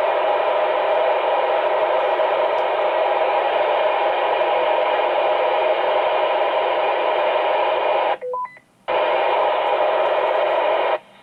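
Steady hiss of static from a radio transceiver's speaker, the receiver open on a channel with no clear speech. About eight seconds in it cuts out briefly with a short beep, comes back, then stops shortly before the end.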